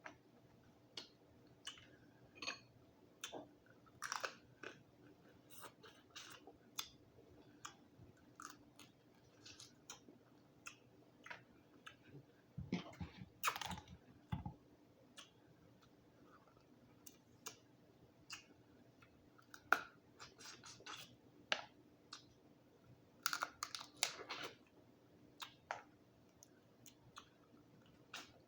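A person eating boiled Dungeness crab: quiet chewing and mouth sounds with many short wet clicks. There is a louder, denser stretch of crunching about halfway through and again near the end.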